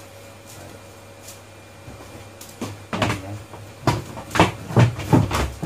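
A quick run of about eight hard knocks and clatters in the second half, like hard objects being handled and set down on a workbench, the loudest near the end.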